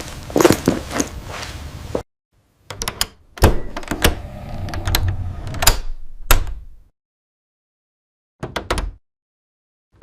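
Knocks and clicks in three short bursts, separated by stretches of dead silence.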